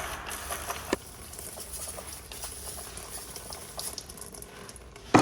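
Aerosol brake cleaner spraying on old rear drum brake shoes, the hiss cutting off about a second in. Light patter and small ticks follow as the cleaner runs off, with one sharp knock at the very end.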